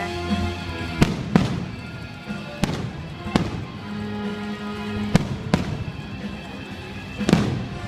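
Fireworks bursting in sharp bangs, about seven of them, mostly in pairs, over music.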